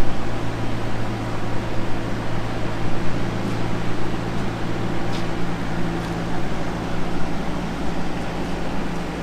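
Steady mechanical hum and rushing air noise, like a fan or running machinery, with a low held drone underneath.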